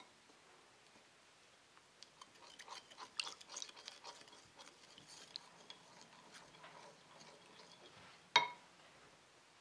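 A wooden spatula stirring a thick soy-sauce marinade in a glass bowl: soft wet clicks and scrapes against the glass, starting about two seconds in, then one sharp knock near the end.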